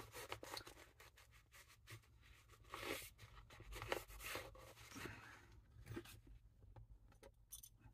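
Faint handling sounds from a small hand-tool kit: scattered light clicks, scrapes and rustles as tools are picked up and fitted together in their nylon bag, a little busier from about three seconds in.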